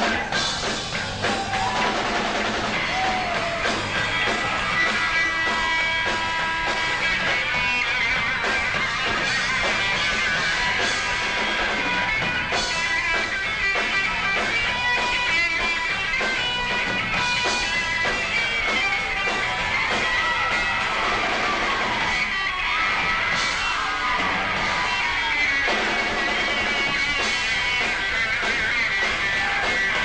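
Rock band playing live, with guitar and drum kit, at a steady, loud level.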